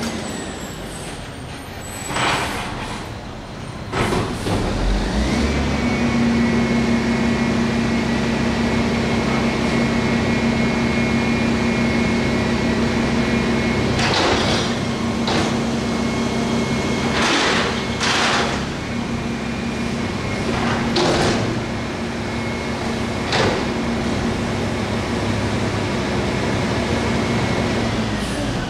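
Mack MR688S front-loader garbage truck's diesel engine revving up to a steady high idle about five seconds in to run the hydraulics as its forks lift and empty a dumpster. Several short air hisses come along the way, and the engine drops back near the end.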